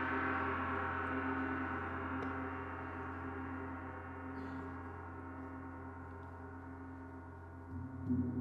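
Large planetary gong ringing with many overlapping tones, slowly fading, then struck softly again near the end, bringing up a fresh swell of low tones.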